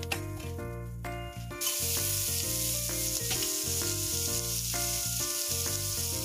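Chopped onions, curry leaves and dals sizzling in hot oil in a steel pan, the sizzle getting much louder about a second and a half in. Background music with a steady melody and bass line plays throughout.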